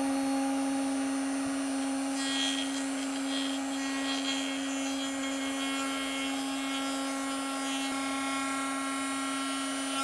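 CNC router spindle running at a steady high whine, with a half-inch bit starting a deep cut into wood. From about two seconds in, a fainter hiss of cutting joins the whine.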